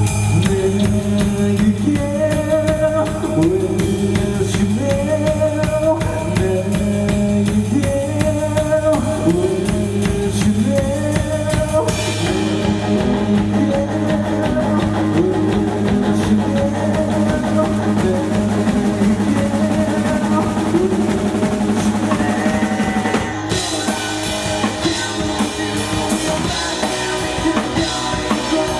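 Live rock band playing, with the drum kit keeping a steady beat under a melodic line. The cymbal shimmer drops away about twelve seconds in and comes back near the end.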